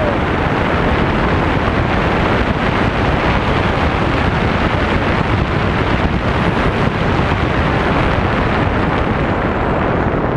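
Steady rush of wind buffeting a wrist-mounted camera's microphone as a tandem parachute descends under an open canopy.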